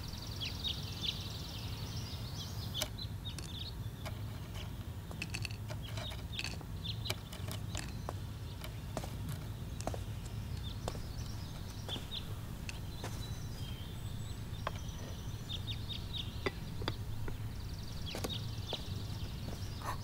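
Small birds chirping and twittering in short scattered calls, with quick trills near the start and near the end, over a low steady rumble of outdoor ambience.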